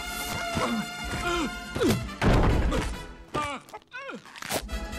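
Animated-film soundtrack: music under slapstick scuffle sound effects as a chicken attacks a man. There is a loud crash about two seconds in and further thuds and short yelps after it, as he is knocked to the floor.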